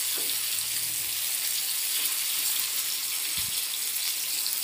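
Rava-coated pomfret slices shallow-frying in oil on a flat iron tawa: a steady, high sizzling hiss as the pieces are turned with tongs, with a brief low thump about three and a half seconds in.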